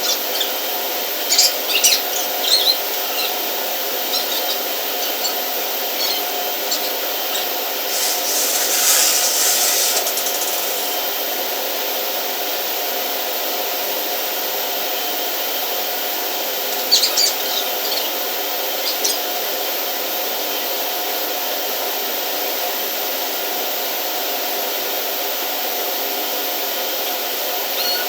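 Steady mechanical hum with a few short clicks and clinks, and a brief hiss about nine seconds in.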